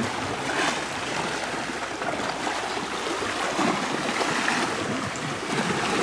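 Steady rushing wash of sea water, waves breaking and washing on the shore.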